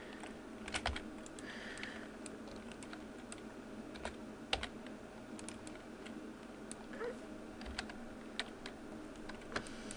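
Computer keyboard keys tapped now and then, single irregular clicks, over a faint steady hum.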